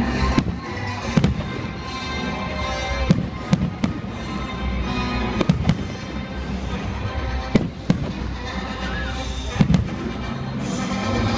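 Fireworks exploring in a show: about ten sharp bangs at irregular intervals, some in quick pairs, over music that plays throughout.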